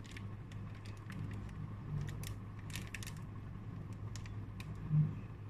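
Clear plastic pocket pages of a trading-card binder crinkling and clicking as Match Attax cards are handled and slid into the sleeves, in many short crisp crackles over a steady low hum. A short low thump about five seconds in.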